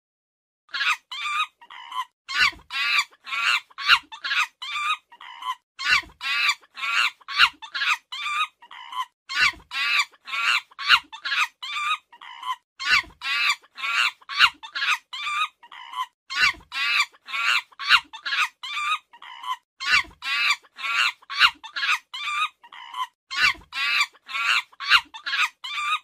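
A rapid run of short, high animal calls, about three a second, with a few brief pauses between runs.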